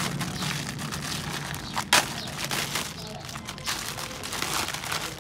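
Clear plastic wrapping crinkling and tearing as it is pulled by hand off a new paper air filter element, with one sharp snap about two seconds in.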